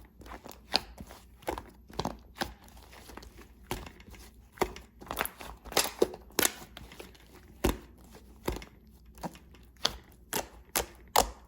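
Clay-mixed slime being pressed and stretched by hand, giving off irregular crisp pops and clicks, roughly one or two a second.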